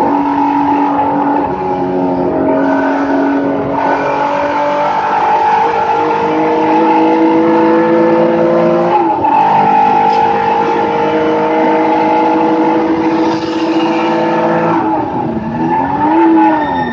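Race car engine pulling hard, heard from inside the roll-caged cockpit: the revs climb slowly through a long stretch, fall sharply at an upshift about nine seconds in, then climb again. Near the end the revs dip briefly and pick back up.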